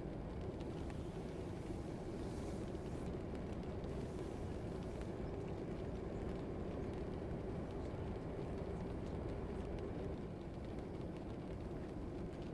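Classroom ambience: a steady low rumble of room noise with faint scattered clicks and knocks.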